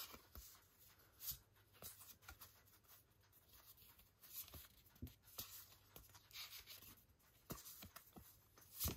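Near silence broken by faint, scattered taps and light rustles of cardboard art cards being handled and turned over.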